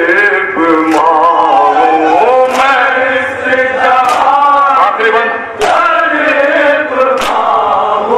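Group of men chanting a noha, an Urdu mourning elegy, in unison, with a sharp beat about every second and a half.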